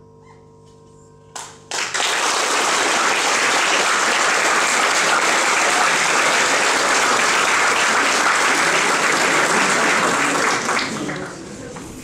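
The final chord of the music dies away, and about a second and a half in the audience bursts into applause. The applause stays loud and steady for about nine seconds, then tapers off.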